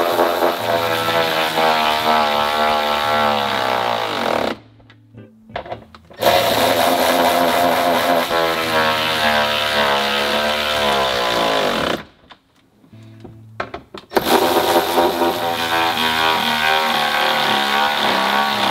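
Cordless electric ratchet running bolts down into a steel bed plate, in three long runs of several seconds each. The motor's pitch drops near the end of each run. Background music plays under it.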